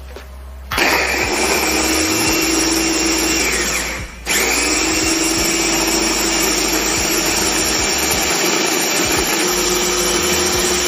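Signora Daily Chopper's 300-watt electric motor running with its stainless blades chopping shallots, garlic, candlenuts and onion with oil into a fine paste. It starts under a second in, cuts out for a moment about four seconds in, then runs again.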